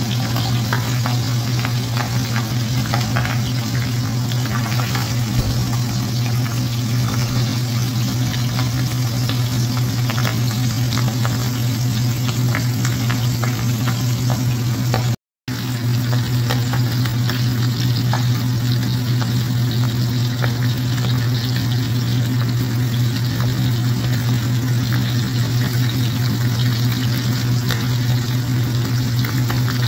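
Hot oil sizzling and crackling steadily around whole fish shallow-frying in a stainless steel pan, over a steady low hum. The sound cuts out for a moment about halfway.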